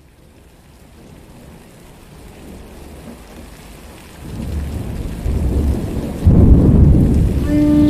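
Thunderstorm sound effect: rain hiss fading in and building, with low rumbling thunder swelling about four seconds in and a heavy roll of thunder about six seconds in. Near the end a flute enters on a long held note.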